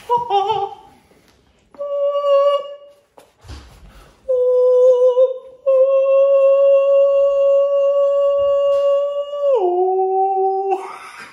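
A man singing or howling a run of long, held falsetto notes: a short wavering one, then several steady ones, the longest held about four seconds before it drops to a lower note near the end.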